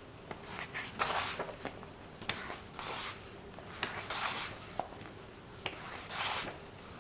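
Pages of a paperback book being turned one after another: about four soft paper swishes, each with small crisp clicks and rustles as a page flips and settles.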